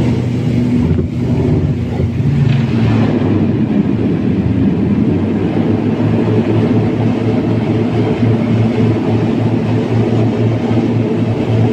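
Turboprop airliner's engine and propeller heard from inside the cabin during the landing roll on the runway: a loud, steady low drone with a pulsing hum.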